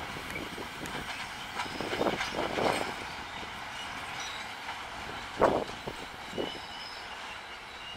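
Last wagons and brake van of a freight train of open steel wagons rolling past, a steady rumble broken by irregular clanks of wheels over rail joints. The loudest clank comes a little past halfway.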